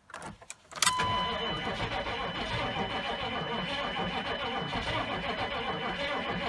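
GM 6.5 L turbo-diesel being cranked over by its starter on a cold start after the glow plugs have been cycled. A few faint clicks come first, then the starter engages with a sharp clunk about a second in and cranks steadily with a thin high whine. The battery is run well down, and the engine is not catching.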